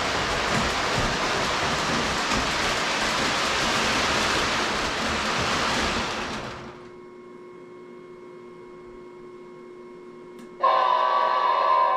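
A loud, steady rushing noise cuts off about two-thirds of the way through, leaving a faint electrical hum. Near the end, a model train locomotive's electronic horn sounds: one loud held tone with a brief break.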